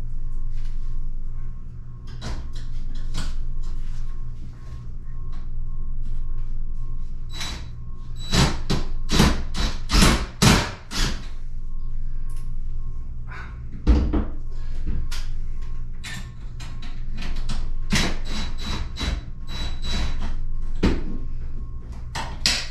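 Scattered knocks and clicks, coming thick and fast about eight to eleven seconds in, over a steady low hum.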